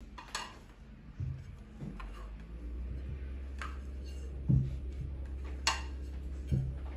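Kitchen handling sounds: three light clinks, like dishes or glass being set down, and a few soft low thumps, over a steady low hum.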